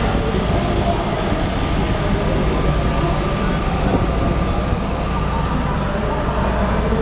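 Steady low rumble of a festival boat's engine as the boat passes close on the river, over continuous background noise.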